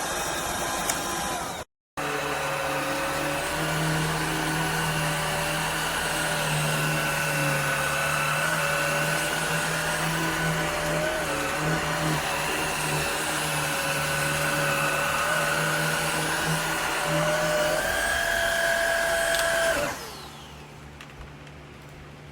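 Shark cordless vacuum cleaner running steadily with a motor whine. About 18 s in, its pitch steps up, and about two seconds later it shuts off abruptly, leaving a faint hum.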